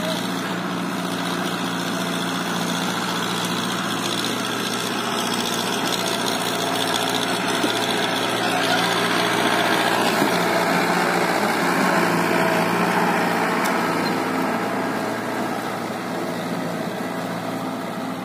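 Powertrac 60 tractor's diesel engine working steadily under load as it drags a tree trunk over dry ground. It grows a little louder toward the middle and fades near the end as the tractor moves away.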